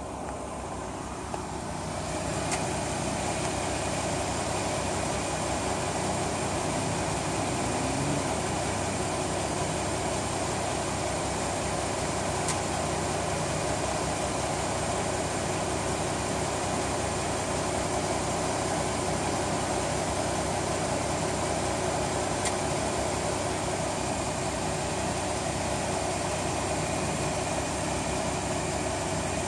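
Chrysler 3.5L V6 engine idling steadily, with the weird ticking sound under investigation; the running noise grows louder about two seconds in.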